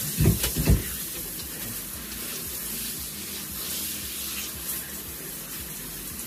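Shower spraying steadily onto a person in a fursuit standing in a bathtub. A few loud, low, muffled sounds come in the first second.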